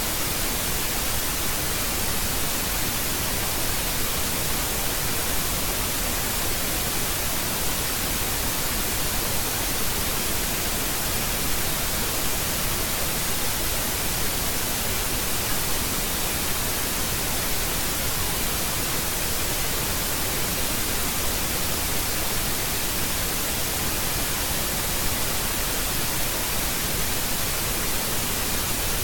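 Steady static hiss, even and unchanging throughout, with no other sound on top.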